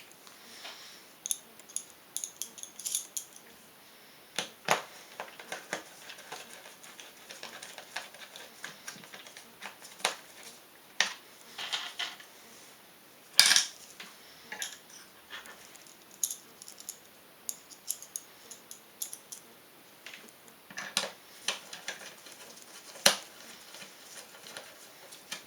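Scattered sharp clicks and light metallic clinks from handling small metal parts while a CPU heat sink is fastened onto its bracket holder, the loudest click about halfway through and another sharp one near the end.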